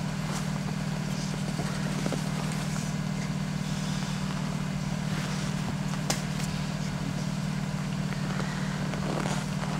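Car engine idling steadily, a low even hum with no change in speed, with a few faint clicks over it.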